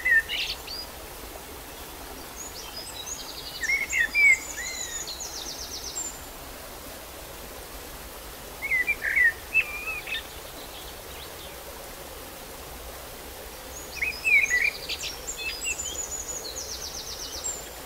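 A songbird singing three phrases, each a run of quick chirps followed by a fast, high buzzy trill, spaced about five to six seconds apart over steady outdoor background noise.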